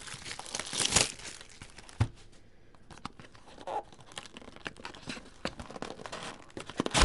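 Trading-card packaging torn open and crinkled by hand as the next Bowman Chrome hobby box is opened. There are sharp snaps about one and two seconds in, a brief lull, then a run of small crinkles and another snap at the end.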